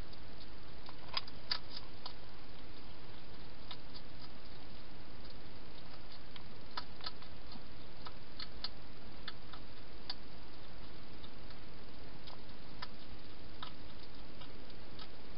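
Scattered sharp clicks and crunches, sometimes in quick pairs, over a steady hiss: a wild hedgehog crunching dry food inside a plastic feeding box.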